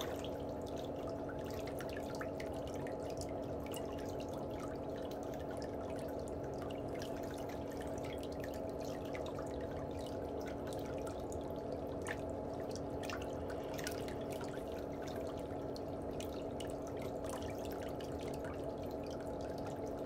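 Pedicure water trickling and dripping steadily over a low, even hum, with faint scattered clicks from a metal nail tool cleaning under a big toenail.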